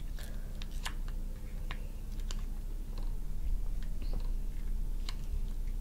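Scattered light clicks and cracks of raw crab shell being picked apart by hand.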